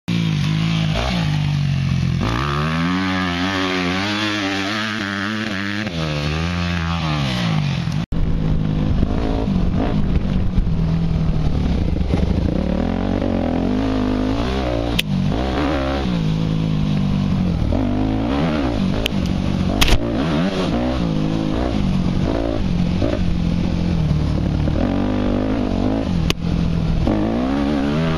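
Yamaha YZ250F four-stroke single-cylinder dirt-bike engine revving up and falling back repeatedly as the bike rides past. From about eight seconds in it is heard from on the bike along a rough trail, the revs rising and falling continuously with occasional sharp knocks and clatter.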